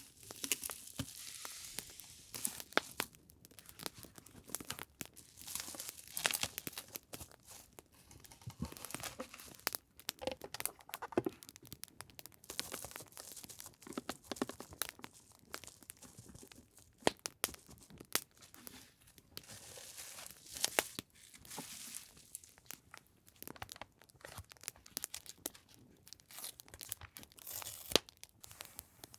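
Paper and plastic packaging rustling and crinkling as it is handled, over the irregular snapping crackle of a campfire recording.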